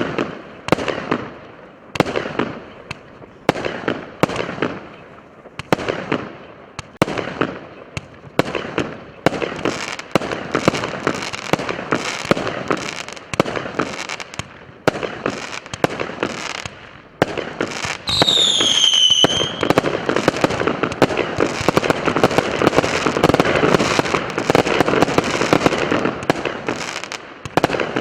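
Multi-shot consumer firework cake ("New Year Adventure" salute) firing: a steady run of sharp shots, one or two a second, each trailing off in crackle. In the second half the shots run together into dense continuous crackling, with a brief falling whistle about two-thirds of the way in, and the barrage dies down near the end.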